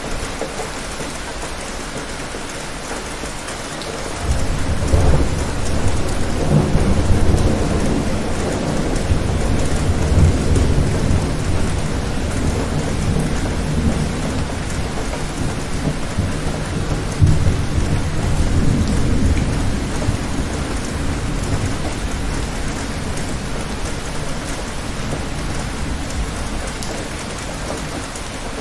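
Steady rain falling, with a long roll of thunder that breaks in suddenly about four seconds in, rumbles on through the middle with a second swell, and slowly dies away toward the end.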